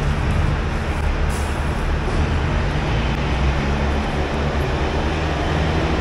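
Steady low rumble of a large vehicle engine running nearby.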